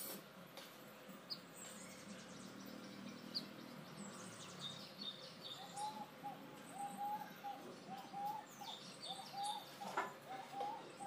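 Birds calling: a short note repeated about twice a second from about six seconds in, with bursts of high chirping now and then, and one sharp click near the end.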